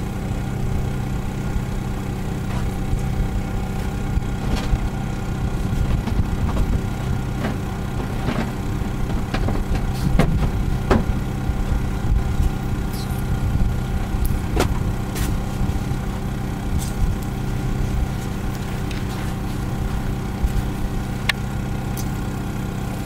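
Steady engine-like hum with several tones, with scattered short pops and crackles on top: bacon grease sizzling in a metal tray under sunlight focused by a Fresnel lens.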